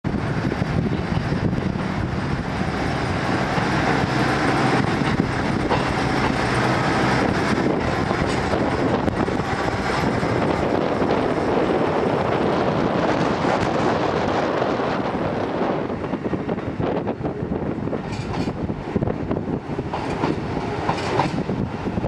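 Two-car KiHa 11 diesel railcar train running slowly past at close range, its diesel engines and wheels on the rails making a steady din. After about sixteen seconds this dies down and separate clacks of the wheels over rail joints and points stand out.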